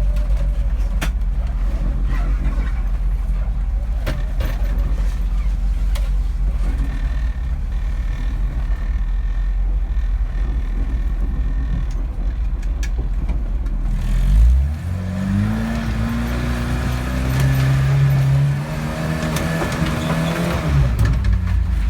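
Volkswagen Iltis off-roader's engine, a low steady rumble at first, then revving up about two-thirds of the way in: the engine note climbs, dips briefly, climbs again and falls away near the end.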